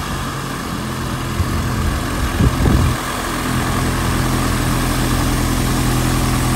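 Light aircraft's piston engine and propeller running at low taxi power as the plane taxis past, a steady drone that grows slightly louder toward the end.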